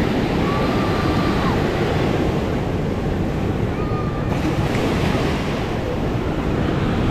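Ocean surf washing on a sandy beach, with wind buffeting the microphone; the hiss of the wash swells a little past four seconds in.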